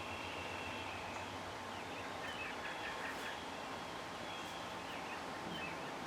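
Quiet outdoor ambience with faint, scattered bird chirps over a steady background hiss.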